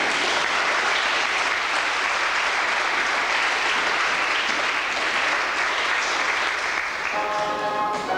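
Audience clapping in a steady burst of applause. Near the end, several bell-like chiming tones start up.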